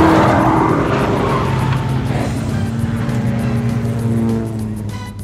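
Sports car sound effect: a car engine racing past, loudest at the start and fading away over about four seconds, over background music.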